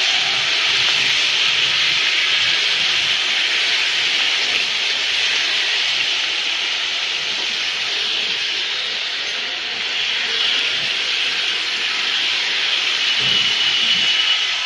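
Steady hiss of rain falling on wet pavement, with a short thin high tone near the end.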